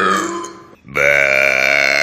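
A person burping: a short burp sliding down in pitch, then, just under a second in, a long, loud burp held at a steady pitch.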